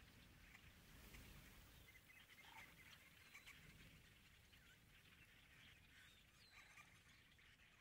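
Faint, distant calls and chatter from a large flock of red-winged and yellow-headed blackbirds, with a low rumble of wind about a second in.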